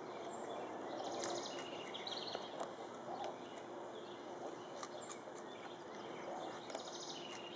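Quiet outdoor ambience with small birds chirping in short, quick trills several times over a steady faint background hiss.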